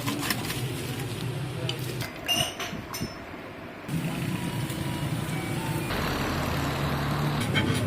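An engine running steadily with a low hum, with scattered clicks and knocks over it.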